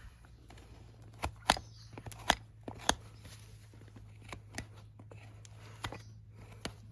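Horse hoof being trimmed: a handful of sharp, irregular snips and clicks of hoof-cutting tools on hoof horn, over a steady low hum.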